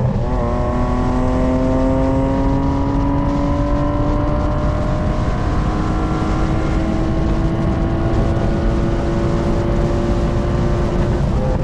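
BMW E36's M52B25 2.5-litre straight-six, with a K&N intake, pulling under load in one gear, its revs climbing slowly and steadily for about eleven seconds. Near the end the pull breaks off into a few sharp cracks, typical of the custom pops-and-bangs tune on overrun.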